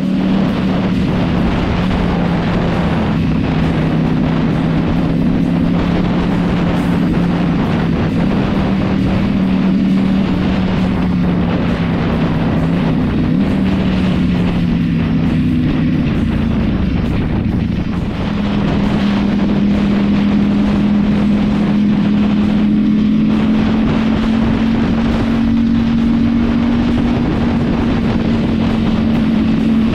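Ducati Panigale V4 engine running at steady highway cruising speed, with wind rushing over the microphone. Past the halfway point the engine note sags and dips briefly, then holds steady a little higher.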